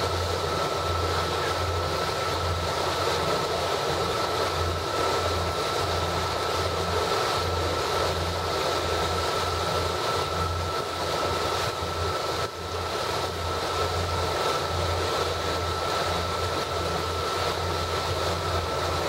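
Motorboat engine running steadily underway, a constant drone with a thin steady whine over it, and wind on the microphone.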